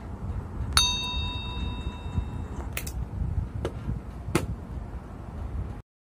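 A bell-like notification ding sound effect about a second in, ringing for about two seconds, followed by three sharp clicks, over a low steady background noise that cuts off just before the end.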